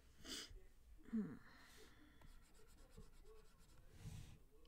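Faint scratching of a stylus drawing short strokes on a pen tablet, with a brief low falling sound about a second in, the loudest moment.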